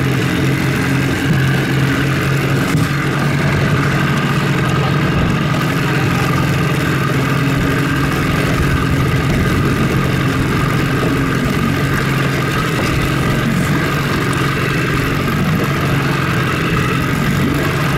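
An engine running steadily at an even pitch, a low drone that does not change.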